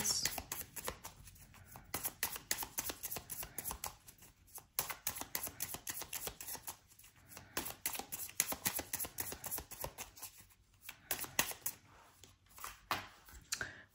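A deck of tarot cards being shuffled by hand: rapid runs of quick card-on-card clicks, broken by a few short pauses.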